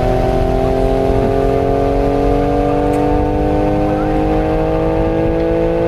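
Vintage WWII air raid siren sounding loudly, a chord of several tones rising slowly in pitch as it winds up, over a low rumble.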